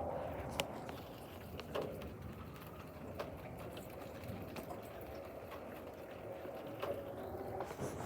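Thunderstorm rain: a steady low wash with scattered sharp taps of single drops, about one every second or two.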